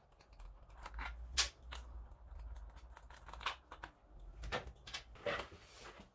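Light, scattered clicks and knocks as a 7mm socket unbolts a motorcycle's front sprocket cover and the cover is lifted off, with one sharper click about a second and a half in.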